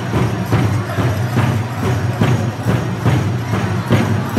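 Powwow music: a big drum struck in a steady beat, a little over two strokes a second, with the metal cones of a jingle dress jingling as the dancer moves.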